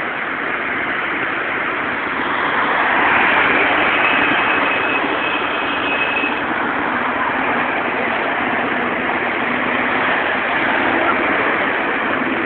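City road traffic: cars passing, a steady rush of road noise that swells about three seconds in.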